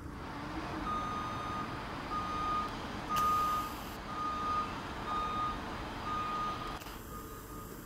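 An electronic warning beeper sounds six or seven times, about once a second at one steady pitch, over a steady background rumble from the distant approaching diesel freight locomotive. A brief rush of noise about three seconds in is the loudest moment.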